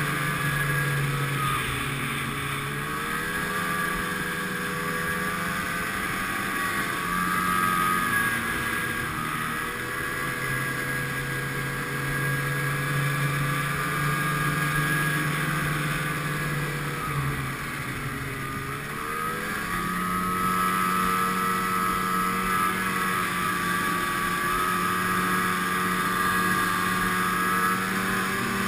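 Snowmobile engine running continuously as it travels a groomed trail, its pitch dipping and climbing again a few times as it eases off and speeds back up.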